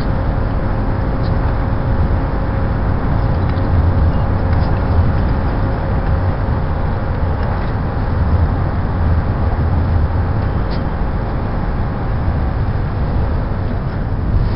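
Steady low rumbling noise of a docked car ferry and its terminal, sped up seven times, even in level throughout.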